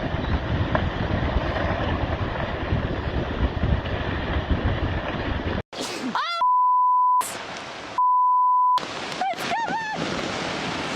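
Rough rushing wind and water noise battering the microphone, cut off suddenly. Then excited shouting with two steady, high censor bleeps, each under a second, blotting out words.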